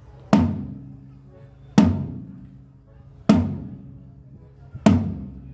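A drum kit's floor tom struck four single times, about once every second and a half, each hit ringing out and dying away, as it is checked for tuning. It is tuned so low that it is nearly deeper than the bass drum and needs tightening.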